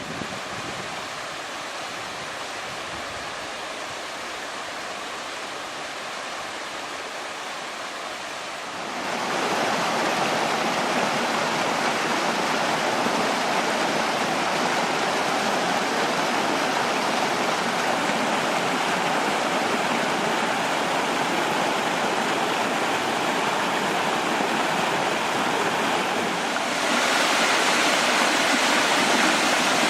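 Mountain valley stream rushing and splashing over rocks, a steady water noise that gets louder about nine seconds in and again near the end.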